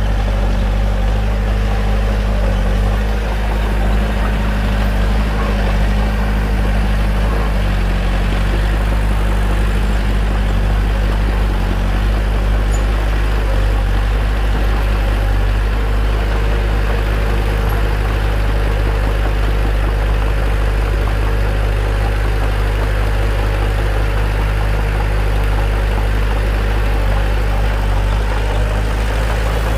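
Bulldozer's diesel engine running with a steady, deep drone.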